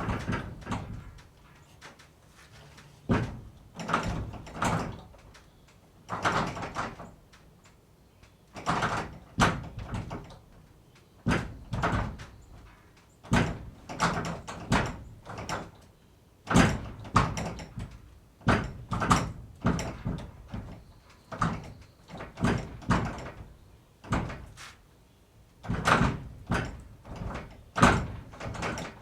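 A wooden barn door being worked again and again, each move a short cluster of knocks, rattles and bangs, with brief pauses between them.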